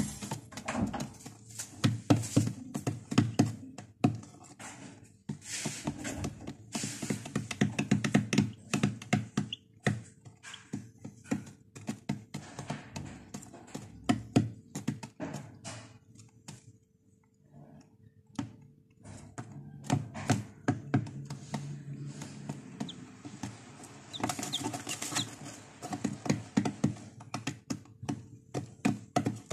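Chicks pecking crumbled feed off a hard plastic tray floor: a rapid, irregular tapping and clicking that pauses briefly about two thirds of the way in, with a few short peeps near the end.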